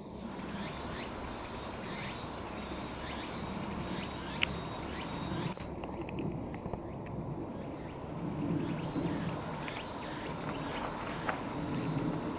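Cicadas calling in a steady, fast-pulsing high chorus over a low background rumble. A single sharp click about four and a half seconds in.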